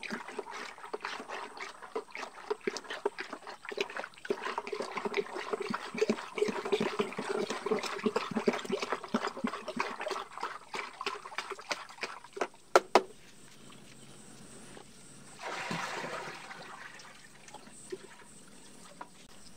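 Water splashing and sloshing in a plastic bucket as a hand stirs fertiliser into it, with dripping from the fingers. The stirring stops about 13 seconds in with a couple of sharp knocks, and a short rush of liquid follows a few seconds later as the mix is poured into the drum.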